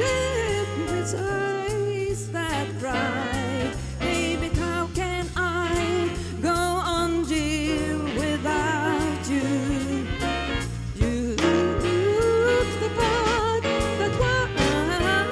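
Big band swing jazz: a woman singing with vibrato over a steady bass line and drums.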